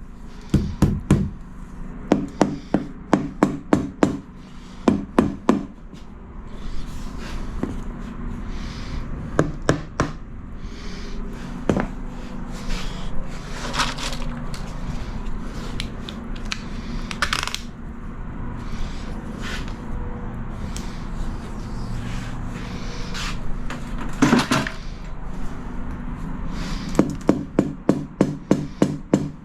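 Tiles being tapped down into adhesive, in quick runs of sharp knocks of about three or four a second at the start and again near the end. In between come scattered clicks and scraping.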